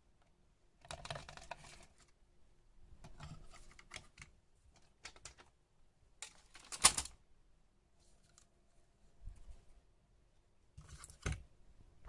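Scattered handling noises of laptop parts being moved on a workbench: light rustles and small plastic clicks in short clusters, with one sharp knock about seven seconds in.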